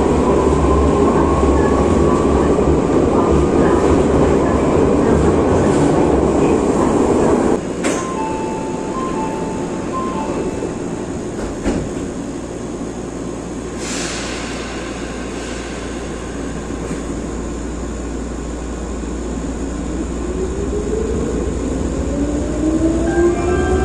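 Nagano Electric Railway 8500-series (ex-Tokyu) electric train heard from inside a car. It runs loudly through a tunnel with a rising motor whine, then quietens abruptly as it stops about seven seconds in. A few short beeps and a hiss of air follow at standstill, and near the end the traction motors whine upward in pitch as the train pulls away.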